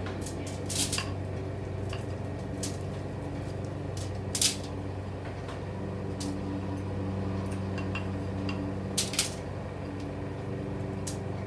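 A spatula clinking and scraping against a mixing bowl and baking pan as sticky granola-bar mixture is moved into the pan: a few sharp clinks, about a second in, midway and twice near the end, over a steady low hum.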